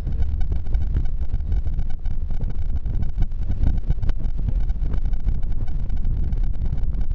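Low, steady engine and road noise of a bus driving on a gravel road, heard from inside the cabin.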